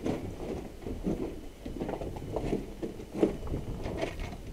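Footsteps of people running over rubble and gravel, with irregular thumps and scuffs of boots and gear; the sharpest thump comes a little after three seconds in.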